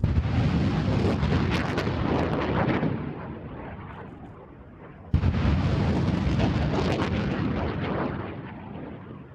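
Two M270 MLRS rocket launches about five seconds apart, each starting suddenly with a loud blast and a rushing noise that fades away over about three seconds.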